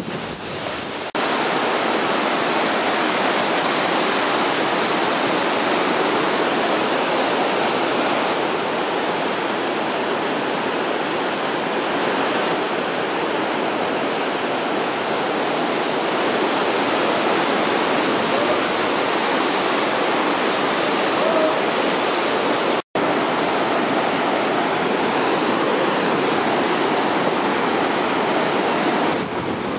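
Mountain river water rushing over rocks, a loud steady wash of noise that cuts out for an instant about two-thirds of the way through.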